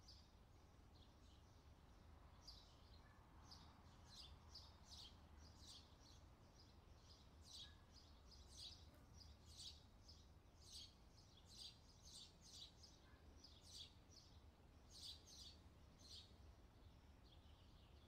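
Faint bird chirps: many short, high calls at irregular intervals, thickest in the middle of the stretch, over a faint low rumble.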